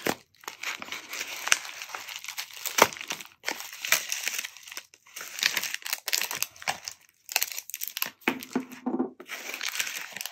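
A yellow padded mailer torn open and crinkled by hand in irregular crackling rips, with the clear plastic pen sleeves rustling as the pens are pulled out near the end.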